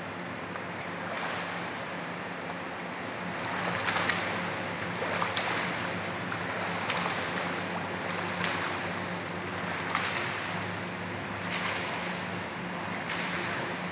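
A swimmer's strokes splashing through pool water, a surge of splash about every second and a half. A steady low hum runs underneath.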